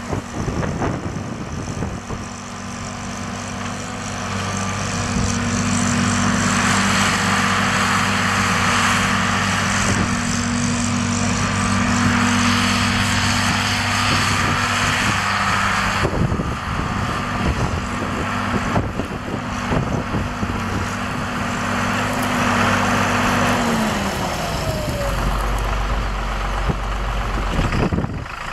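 1979 John Deere 4640 tractor's six-cylinder diesel engine running steadily as the tractor drives across a field. Near the end the engine note falls as it slows, leaving a lower rumble.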